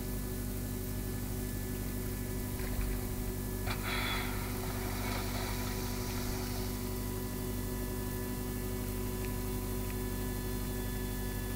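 Boat engine running with a steady hum, with a brief rush of noise about four seconds in.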